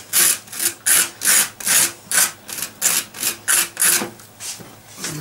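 A table knife scraping butter across dry toast in quick back-and-forth strokes, about three a second, stopping about four seconds in.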